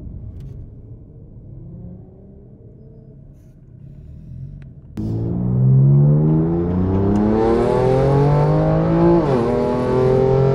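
BMW M2 Competition engine, first a low rumble, then at full throttle about halfway through, its note climbing steadily in pitch. Around three-quarters of the way in the pitch drops sharply on a quick upshift and starts climbing again.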